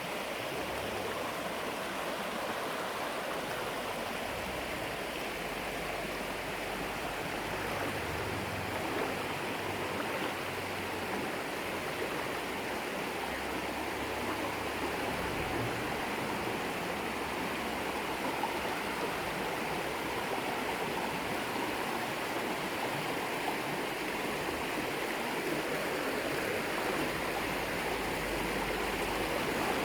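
River water flowing, a steady rush with no breaks.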